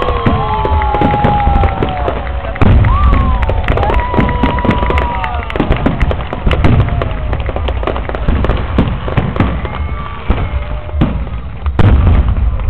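Aerial fireworks display: dense, rapid bangs and crackling shell bursts, with heavier booms about two and a half seconds in and again near the end.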